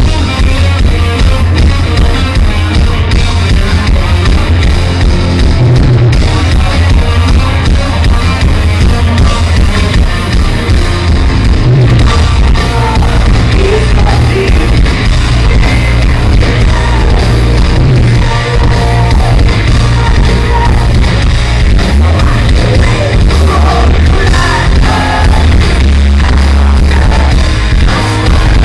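Live heavy metal band playing loud, distorted, with electric guitars, bass and drums, and a singer's voice coming in.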